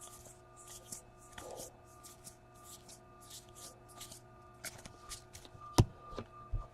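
Baseball trading cards flipped one after another through a stack, a soft papery swish about twice a second, with one sharp tap near the end.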